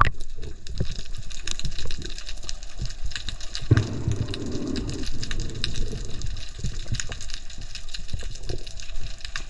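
Underwater sound picked up by a submerged camera: a constant crackle of small clicks, with a louder rush of water noise about four seconds in that lasts about a second.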